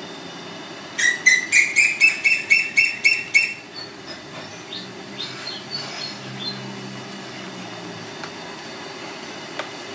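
A bird calls a quick run of about ten loud, even chirps, about four a second, for two and a half seconds, with a few fainter chirps after. Under it is a steady hiss from a pan of soup stock boiling hard on the burner.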